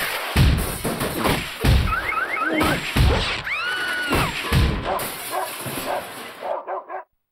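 Cartoon slapstick sound effects: a rapid series of loud crashes and thuds, with a run of four short rising squeaks about two seconds in and a longer arched whistle-like tone a second later. The crashing thins to a few smaller knocks and stops near the end.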